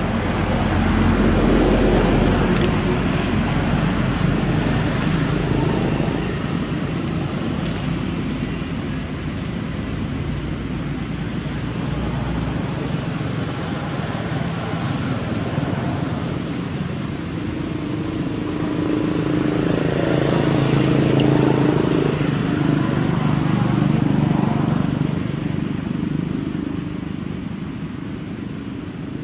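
Outdoor ambience: a steady high-pitched hiss or drone, under a low rumble like road traffic that swells in the first few seconds and again about twenty seconds in.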